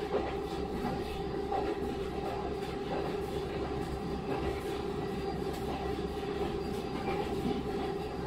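KiHa 40 series diesel railcar heard from inside while running: a steady diesel engine drone with wheel and rail noise and faint occasional clicks from the track.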